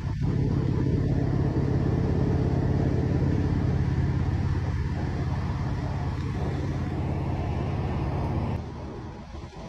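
Motor vehicle engine running steadily at highway cruising speed, with road and wind noise. The sound drops noticeably in level near the end.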